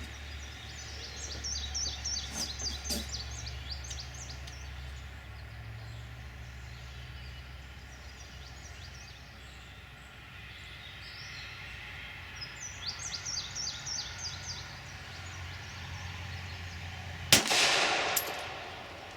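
A single loud pistol-like gunshot about three-quarters of the way through, with a ringing tail that dies away over about a second. Before it, a bird sings two short runs of quick chirps over a steady low hum.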